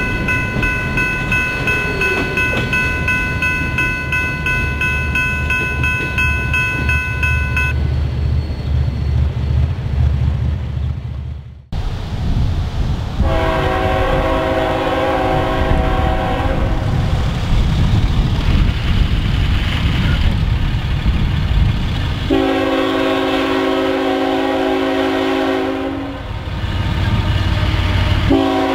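A freight train's cars rumble over a grade crossing while the electronic crossing bell rings; the bell stops about a quarter of the way in. Then an oncoming GE ET44AC diesel-electric locomotive sounds its multi-note air horn over the engine and wheel noise. It gives two long blasts a few seconds apart and starts a third near the end, the pattern of a grade-crossing signal.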